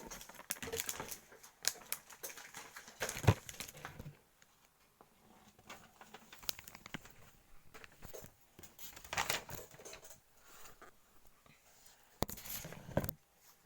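Paper and plastic packaging crinkling and rustling as it is handled and opened, in scattered bursts with quiet gaps.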